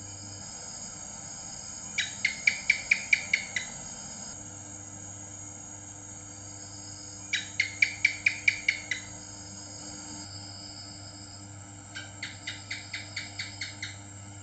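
House gecko (cicak) calling: three series of about nine quick, sharp chirps, each series lasting about a second and a half, with the last one quieter.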